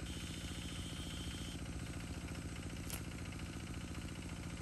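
Small engine running steadily with a fast, even putter. A brief sharp click sounds about three seconds in.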